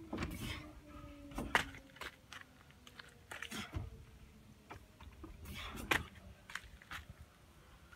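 Irregular knocks and thuds from kipping pull-ups on a wall-mounted steel bar and from feet dropping onto a wooden deck. A faint whine falls slowly in pitch in the background during the first two seconds.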